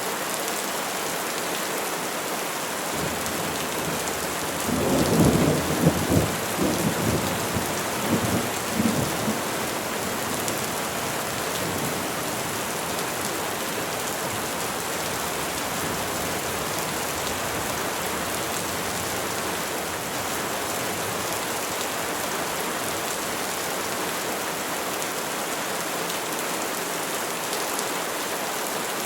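Steady rain falling on trees. About five seconds in comes a rumble of thunder, crackling at first, which fades over about five seconds.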